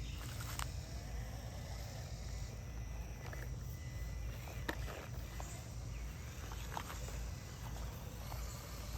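Rustling through grass with scattered light ticks over a steady low rumble, with insects chirping faintly.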